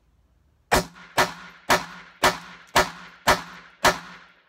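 Ruger SR22 .22 Long Rifle semi-automatic pistol fired in quick succession: seven shots about two a second, each a sharp crack with a short ringing echo, starting under a second in.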